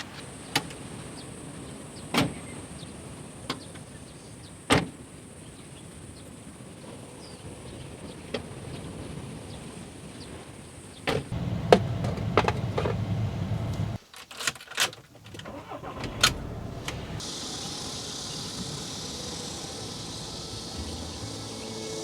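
A series of sharp knocks and clicks, a dozen or so spread irregularly over a steady background rush, with the background changing abruptly twice.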